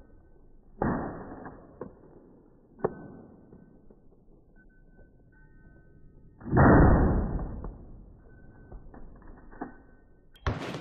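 Slow-motion, deep-pitched shots from a .30-30 lever-action rifle: a moderate blast about a second in and a much louder one about six and a half seconds in, each drawn out into a low boom that fades over one to two seconds, with a few small metallic clicks between. Near the end, sharp full-speed rifle shots begin.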